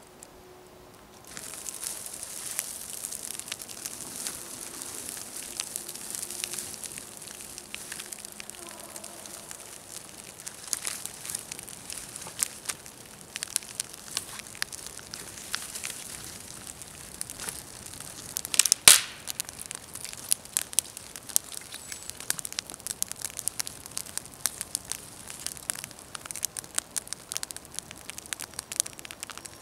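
Small campfire of bark and dry twigs burning and crackling: a steady hiss with many quick pops, starting suddenly about a second in. The loudest pop comes about two-thirds of the way through.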